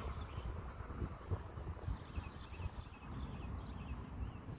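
Insects droning steadily at one high pitch, with faint chirps above low, irregular thumps and rustles from walking along the trail.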